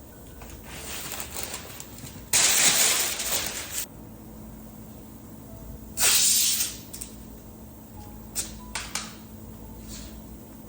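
Compressed air hissing out of an air-powered gun in short blasts: a long blast of about a second and a half, a shorter one a few seconds later, then two quick puffs.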